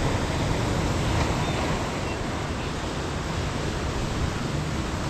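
Steady rush of sea surf against a rocky shore, mixed with wind on the microphone.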